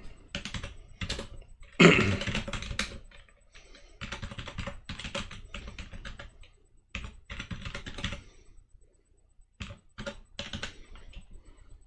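Typing on a computer keyboard: runs of quick keystroke clicks with short pauses between them, and one louder knock about two seconds in.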